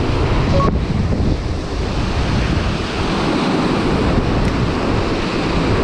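Loud, steady rush of a mountain stream's flowing water: an even wash of noise with a heavy low rumble.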